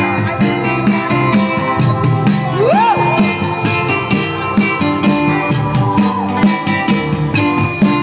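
Live band playing amplified music with guitar over a steady beat, an instrumental introduction before the singing begins.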